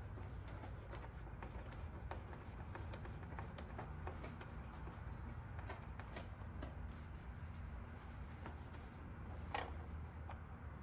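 Small metal hand tool working a fastener on a motorcycle's plastic side panel: light, irregular clicks and scrapes, with one sharper click about nine and a half seconds in, over a low steady hum.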